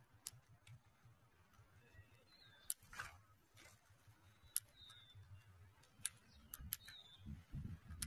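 Quiet, scattered sharp clicks, about eight, of feeding birds pecking and cracking grain on gravel. A few short faint bird chirps come through, and a low rumble rises near the end.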